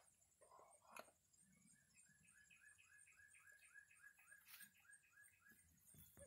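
Near silence, with a faint run of short repeated chirps, about four a second for some three seconds, like a distant songbird, and a soft click or two.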